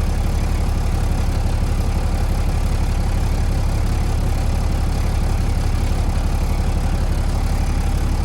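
Semi-truck diesel engine idling steadily, a low even throb.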